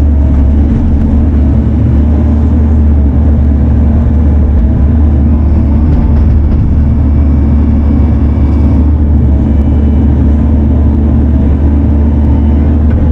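Diesel engine of a Bobcat T650 compact track loader running steadily under load, a loud, even, deep drone.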